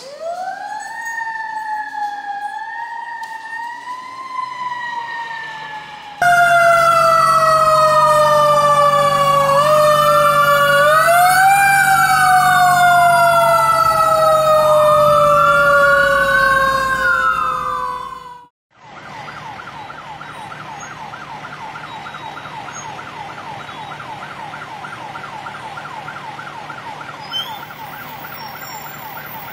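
Fire apparatus sirens in several cuts. First a single wail siren rises and falls slowly. About six seconds in, a louder stretch follows with two sirens wailing over each other above a low steady tone, and it cuts off abruptly; after a brief break, a fast warbling yelp siren runs on.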